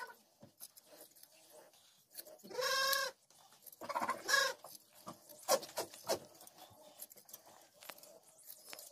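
A sheep bleats, one long wavering bleat about two and a half seconds in and a second, rougher bleat about a second later. Hand shears snip through the fleece with short crisp clicks.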